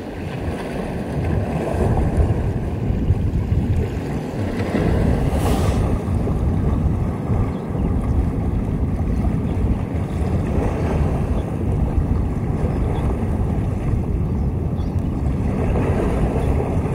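Wind buffeting the microphone: a loud, unsteady low rumble, with a brief hiss about five and a half seconds in.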